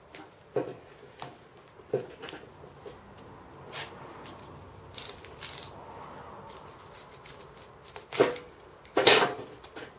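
Wide insulation tape being peeled off the roll and wrapped around a plasma torch hose, heard as a series of short rasping pulls and handling sounds. The longest and loudest comes near the end, as the tape is cut with a utility knife.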